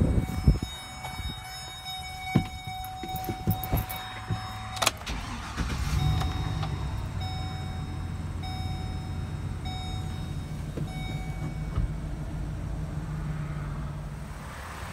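Van door opening with clicks and thumps while a steady warning chime sounds. About five seconds in, the 2009 Chevrolet G3500's 6.0-litre gas V8 starts and settles into a steady idle, with a chime beeping at an even pace over it.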